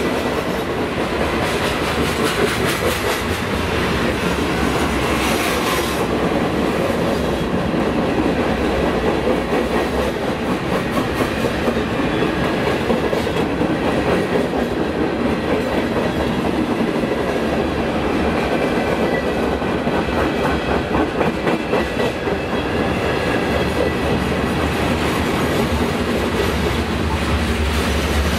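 Freight cars, covered hoppers and gondolas, rolling past close by. Their steel wheels make a steady rumble with a rhythmic clickety-clack over the rail joints.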